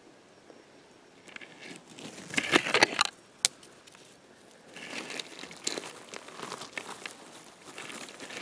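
Dry forest floor rustling and crackling as pine needles, twigs and reindeer lichen are pushed through, in bursts, loudest about two to three seconds in, with one sharp click just after. More rustling follows as a hand reaches in among the lichen and moss to grip a porcini mushroom.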